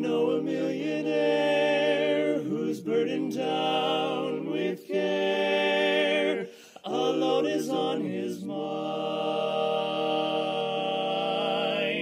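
Male barbershop quartet singing a cappella in close four-part harmony: sustained chords in slow phrases with brief breaks between them, ending on a long held chord.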